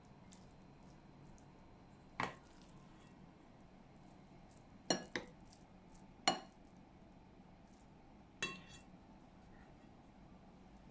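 Dishes and utensils clinking: five separate sharp clinks spread over the stretch, two of them close together in the middle, several ringing briefly like ceramic or glass being struck.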